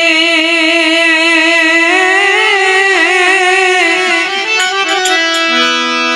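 Instrumental interlude between sung lines of a Gujarati devotional bhajan. A melody instrument holds a wavering note, moves into an ornamented turning phrase, and settles on steady held notes near the end.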